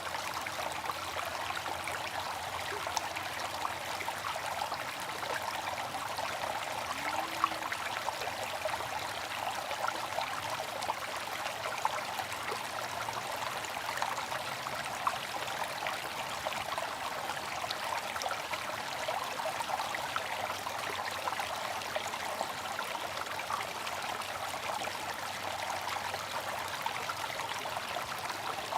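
Bamboo water fountain: water trickling and splashing steadily into its basin, with a few brief louder splashes.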